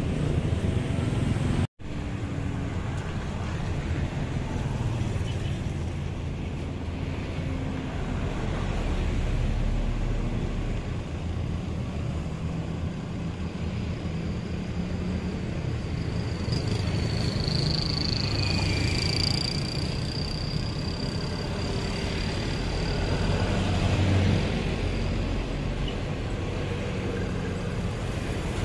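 Steady low engine drone of road rollers compacting fresh asphalt, mixed with passing road traffic and motorcycles. The sound cuts out for a moment just under two seconds in. A faint high whine is heard for a few seconds past the middle.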